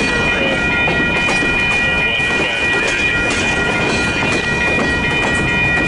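Freight train cars rolling past, wheels rumbling and clattering over the rail joints, with a steady high-pitched tone held over the noise.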